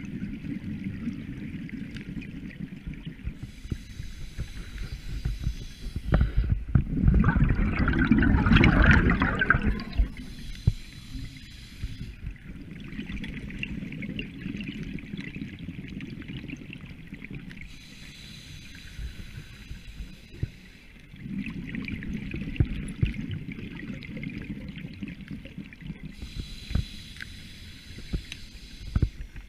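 Scuba diver's breathing through a regulator, recorded underwater: a loud rush of exhaled bubbles starts about six seconds in and lasts about four seconds, and softer rounds of bubbling and hiss from further breaths come and go.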